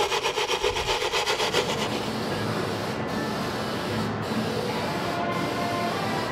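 Brass wire brush scrubbed in quick rhythmic strokes over a shellac-coated carved cherry panel, knocking down the roughness of the dried shellac. About two seconds in it gives way to an aerosol can spraying lacquer in a steady hiss, broken by brief stops about once a second.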